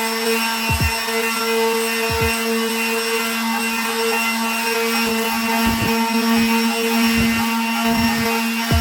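Power saw running steadily while cutting plywood, its motor holding one steady whine, with short low thumps every second or so.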